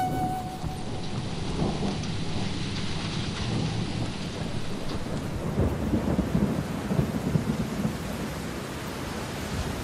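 A steady rushing noise with low, irregular rumbling, like rain with thunder, swelling about six to seven and a half seconds in.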